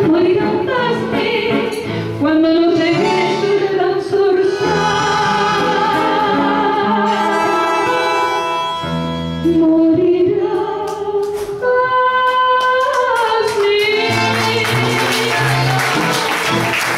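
A woman singing live into a microphone over instrumental accompaniment, holding long notes as the song closes. Audience applause begins about three seconds before the end.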